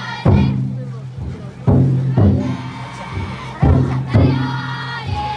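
Large taiko drum inside a futon daiko festival float beaten in pairs of booming strokes about half a second apart, roughly every two seconds, with many bearers chanting and shouting together in time.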